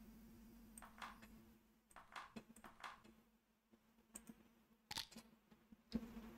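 Near silence with a faint steady hum and a handful of soft, scattered computer mouse clicks as backgammon checkers are moved on screen.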